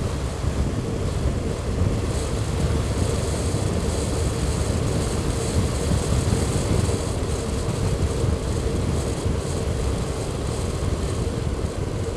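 Motorcycle cruising at a steady speed: even engine drone mixed with wind and road rush on the microphone, with no change in pace.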